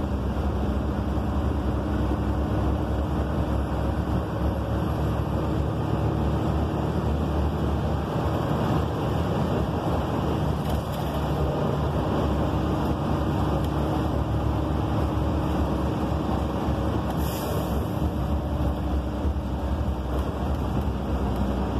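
Inside a 2013 Gillig Low Floor transit bus under way: its Cummins ISL9 inline-six diesel runs steadily under continuous road and tyre noise. A brief hiss comes about three-quarters of the way through.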